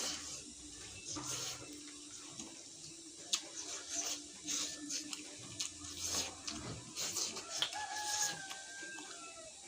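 Close mouth sounds of eating, with repeated short slurps and chews. Near the end a rooster crows once in the background, a drawn-out call that falls slightly in pitch.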